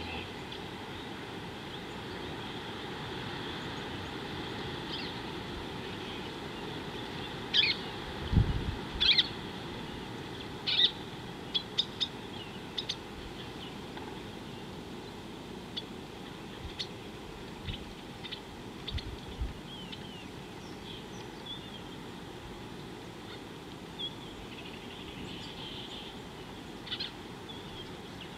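Wild birds giving short, sharp high calls, a quick run of them about eight to thirteen seconds in and scattered single calls after, over a steady outdoor hiss. A low thump sounds about eight seconds in, with fainter ones later.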